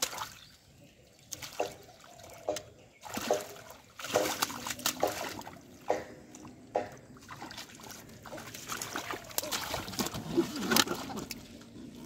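Hands splashing and sloshing in shallow muddy water while grabbing at a fish, in irregular slaps, with a run of splashes about four seconds in and a loud one near the end.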